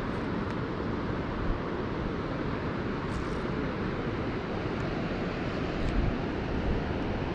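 Steady rushing of river water below a weir, with wind buffeting the microphone in low gusts. A few faint ticks about three seconds in and again near six seconds.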